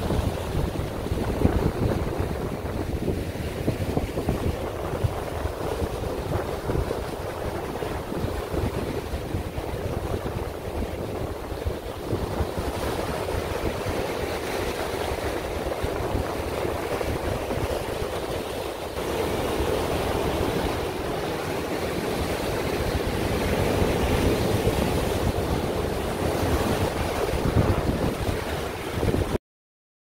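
Sea waves breaking and washing in foam over shoreline rocks, with strong wind buffeting the microphone as a low rumble. The sound cuts off abruptly near the end.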